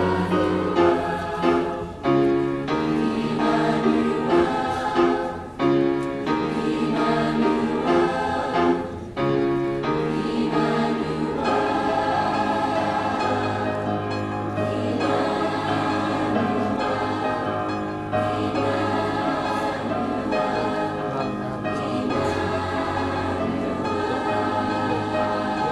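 Mixed high school choir singing: short, detached chords for about the first ten seconds, then long, held chords.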